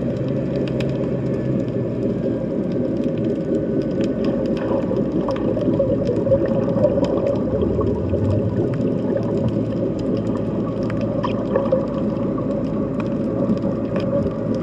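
Underwater sound in the Mediterranean Sea: a dense, steady low rumble with scattered faint clicks and crackles over it.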